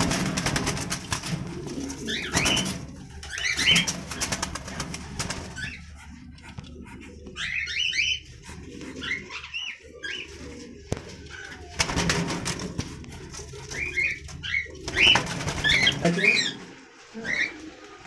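Cockatiels calling with many short chirps, broken by several loud bursts of wing-flapping as birds flutter against the cage wire.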